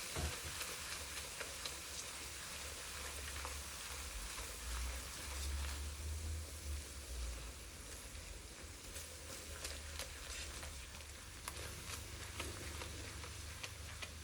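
Chopped onions frying in hot clarified butter in a wok, a steady sizzle with scattered crackles and clicks, the onions just softening before they colour.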